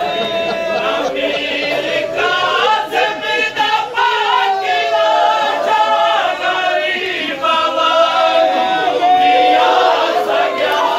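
A noha, a Shia lament, chanted by a group of voices following a lead reciter, with regular beats that match hands striking chests in matam.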